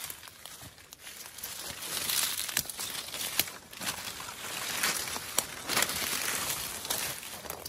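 Footsteps crunching through dry leaf litter and brushing past stiff saw palmetto fronds, with a few sharper crackles. It gets louder after the first second or so.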